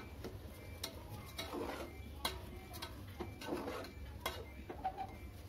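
Steel spatula stirring raw rice into wet masala in an aluminium pressure cooker: soft scraping with irregular sharp clicks and taps of metal on the pot.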